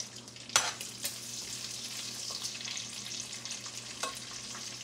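Bacon pieces frying in their grease in a pan with a steady sizzle, which starts up right after a sharp clink about half a second in. A couple of lighter taps come later, about a second in and near the end.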